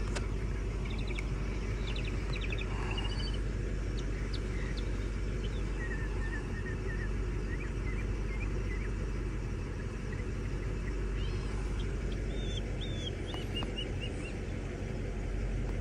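A 1997 Mercedes S500 coupe's 5.0-litre V8 idling steadily, with small birds chirping now and then.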